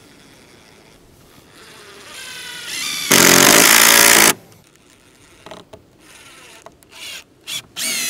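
Electric power tool spinning up with a rising whine, then running loud for about a second as it cuts into wood and stopping abruptly. Near the end come several short, quick bursts of the motor.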